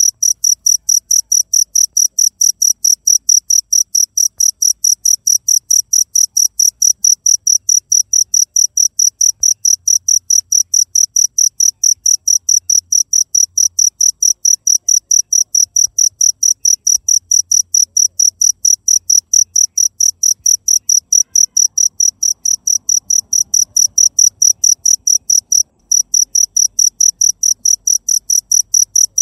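Cricket chirping, a steady run of high-pitched pulses at about four a second, with one brief break near the end.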